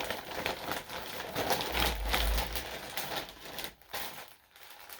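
Packaging and paper rustling and crinkling as a mail-order package is opened and handled, with a low bump about two seconds in.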